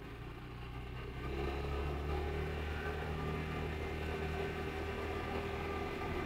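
Vespa GTS 300 Super Sport scooter's single-cylinder four-stroke engine running while riding along; its note grows louder about a second in, then holds steady.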